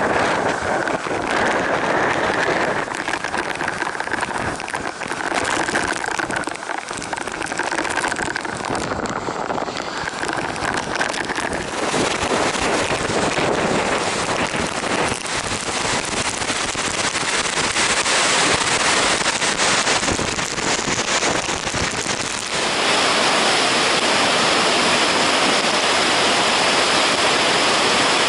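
Steady, loud rushing of a large waterfall, Kegon Falls, with falling water crashing into its plunge pool. About three-quarters of the way through it suddenly gets louder and hissier.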